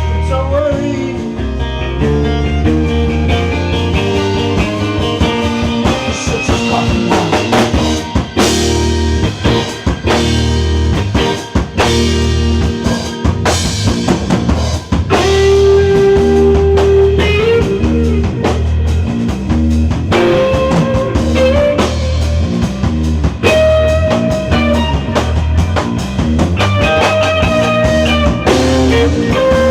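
Rock band playing live, with drum kit and guitars.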